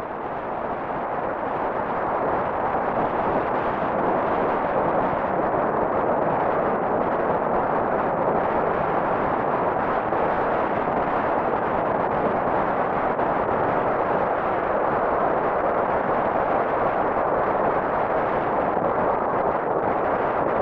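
Swollen, typhoon-flooded river rushing: a steady, loud roar of fast-moving water that fades in over the first couple of seconds.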